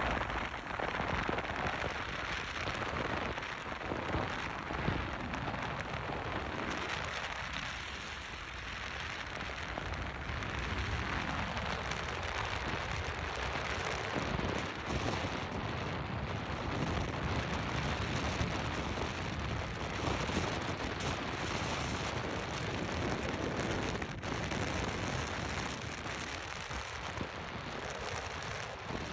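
Steady rushing hiss of a car's tyres on snow- and slush-covered road, with wind noise, heard while driving.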